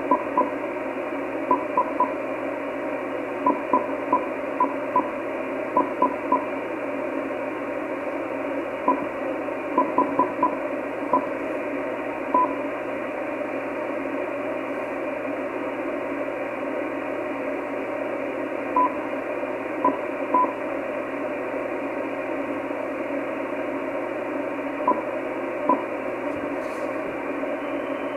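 Icom IC-756 Pro III transceiver's receiver hissing with steady band noise, cut off above its SSB filter passband, while short single-pitch key beeps sound in quick clusters as its menus are stepped through. Near the end the hiss gets slightly brighter as the receive filter is widened from 3.1 to 3.6 kHz.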